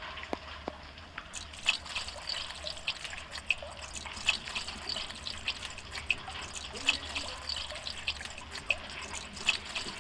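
Water dripping and splashing in many small, quick, irregular drops, beginning about a second and a half in over a steady low background rumble.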